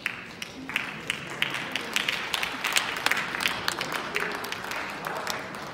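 Audience applauding, with many irregular individual claps standing out.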